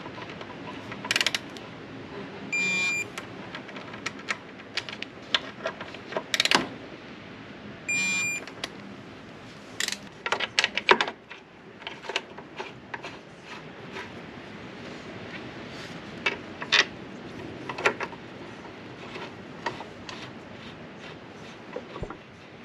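Digital torque wrench beeping twice, about five seconds apart, each short beep signalling that the set torque has been reached on the front axle bolts. Sharp metallic clicks and knocks of socket, bolts and tools run throughout.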